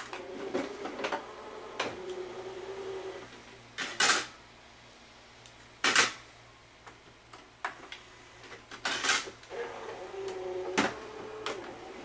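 Sanyo mini stereo's CD changer being loaded: the tray mechanism whirs in two stretches amid small clicks, and three sharp clunks about 4, 6 and 9 seconds in as the tray and disc are handled.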